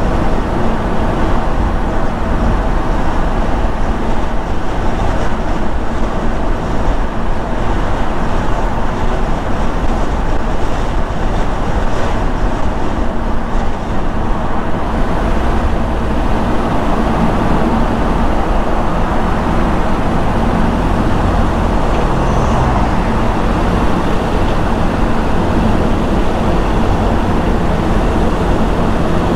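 Steady road noise of a car driving at a constant pace: a continuous rumble of tyres on the road with a low engine hum.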